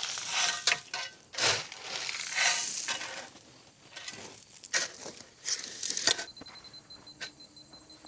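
Hand tools scraping and crunching through gravel or stone dust in irregular strokes. The strokes stop abruptly about six seconds in, leaving a faint steady high-pitched hum.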